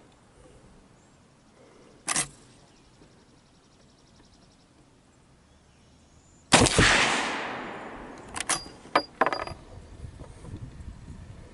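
A Winchester 1866 Yellow Boy lever-action rifle in .45 Colt fires once about two-thirds of the way in, a loud blast with a long echoing tail, followed a couple of seconds later by a handful of sharp metallic clicks as the lever is worked. A shorter, quieter crack comes about two seconds in.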